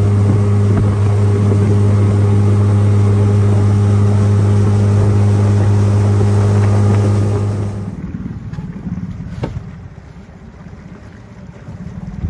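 Outboard motor of a small aluminium fishing boat running at a steady cruising speed, a loud, even hum. About eight seconds in the engine noise drops away sharply as the boat slows, leaving wind on the microphone and water noise.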